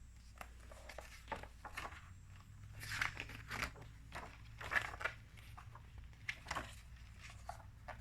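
Soft handling noise: scattered small clicks and crackles, with a few louder rustles around three and five seconds in.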